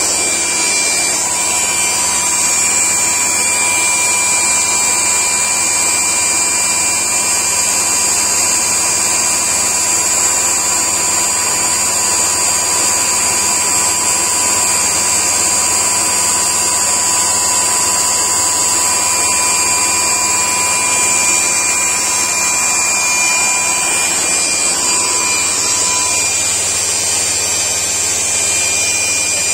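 High-current DC motor running steadily at about 7,100 rpm, a constant high-pitched whine over an even mechanical hum.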